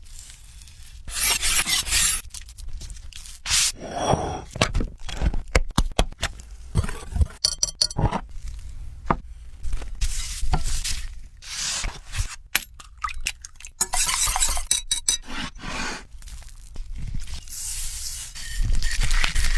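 Kitchen utensils scraping, stirring and clinking against cookware in irregular strokes.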